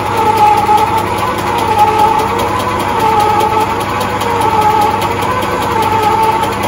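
Metal lathe running under power, with a steady gear whine that wavers slightly in pitch, as its tool cuts a spiral winding groove into a plastic pipe coil former.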